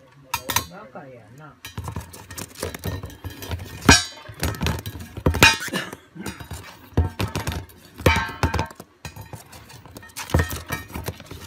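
A lovebird knocking a shallow plastic dish about on a cardboard floor: repeated thunks, scrapes and clatters as the dish is shoved, tipped on its rim and flipped, with the loudest knocks about 4, 5½, 8 and 10½ seconds in.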